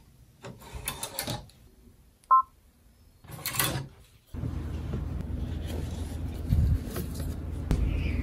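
Embroidery hoop being unclipped and taken off a multi-needle embroidery machine, with short bursts of rustling and clicking and a brief two-tone electronic beep from the machine about two seconds in. From about four seconds a steady low hum sets in, with a few light snips of small scissors cutting loose threads.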